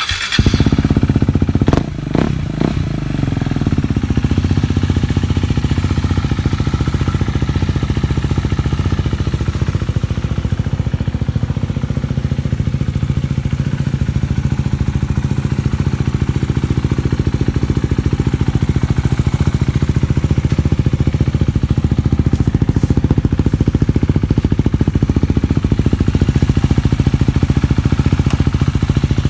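KTM 390 Duke's single-cylinder engine through an aftermarket Akrapovic exhaust. It comes in suddenly at the start, is uneven for the first few seconds, then settles into a steady idle with a rapid, even exhaust beat.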